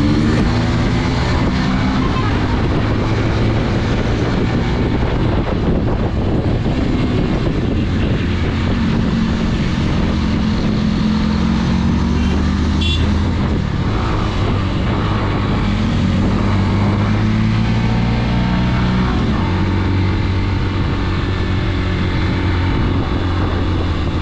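Motorcycle engine running while riding, its pitch rising and falling as the speed changes, over a steady rush of wind and road noise.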